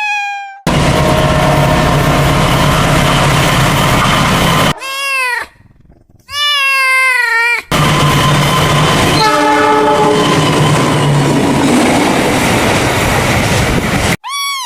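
A train running with loud rail noise and engine hum, with a short horn blast partway through, hard-cut together with repeated short cat meows.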